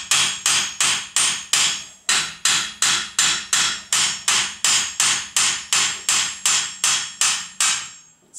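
Hammer striking a rusted front wheel hub assembly on a 2006 VW Golf in quick, even blows, about three a second, with a metallic ring, knocking the hub loose by working one side and then the other. There is a short break about two seconds in, and the blows stop shortly before the end.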